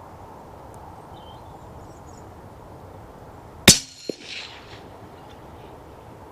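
A single shot from a moderated CZ455 rifle in .17 HMR, a sharp loud crack about three and a half seconds in. A second, fainter crack follows less than half a second later, the bullet striking the rabbit at about 106 yards.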